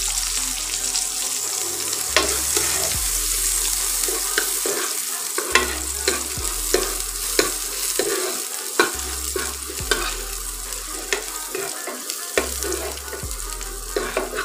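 Sliced onions and asafoetida sizzling in hot mustard oil in a non-stick wok, with a steel spoon stirring and repeatedly clicking and scraping against the pan. A low hum cuts in and out every couple of seconds underneath.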